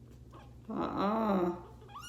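A young kitten meowing once, a drawn-out cry that rises and falls in pitch, lasting about a second.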